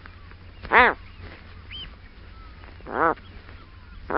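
A bird giving short honking calls, each rising then falling in pitch: about a second in, again about three seconds in, and once more at the very end. A low steady hum runs underneath.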